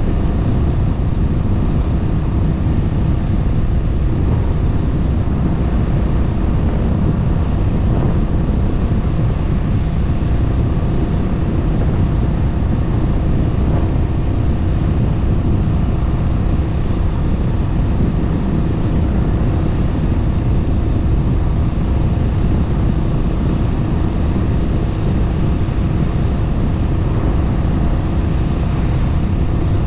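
Honda Rebel 1100 DCT's 1084 cc parallel-twin engine running steadily at highway cruise, about 110 km/h, under a heavy low rush of wind and road noise.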